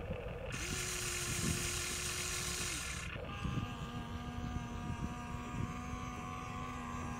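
Electric motors and gearboxes of a Huina RC excavator whining steadily as the boom and bucket move, with a hiss during the first whine. About three seconds in, the first whine stops and a lower-pitched one starts as the arm raises and swings.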